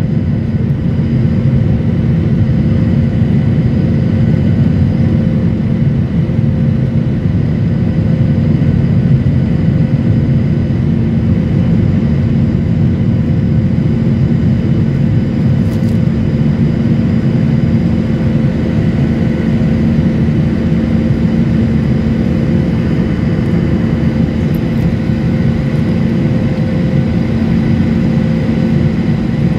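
Jet airliner cabin noise while climbing just after takeoff: the engines and rushing airflow make a loud, steady drone with a constant hum in it.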